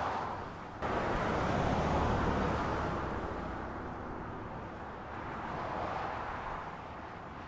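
Road traffic going past, a steady rush of vehicle noise that swells and fades as vehicles pass. The sound jumps up suddenly a little under a second in.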